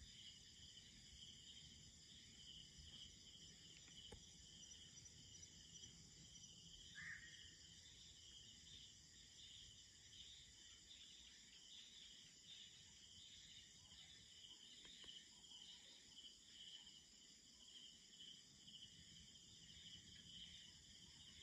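Faint night chorus of crickets and other insects trilling steadily, with one short falling chirp about seven seconds in.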